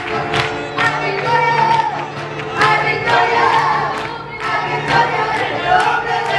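Live church worship singing: a woman and a man lead into microphones with the congregation singing along, over a steady beat.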